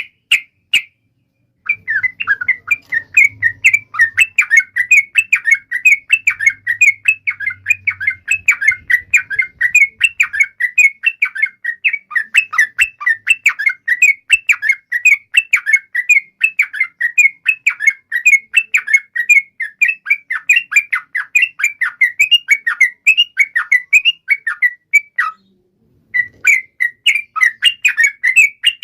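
Yellow-vented bulbul (trucukan) singing a long, rapid 'ropel' run of quick chattering notes, repeated many times a second. After a couple of short notes at the start it sings on without a break, pauses about 25 seconds in, and resumes a second later.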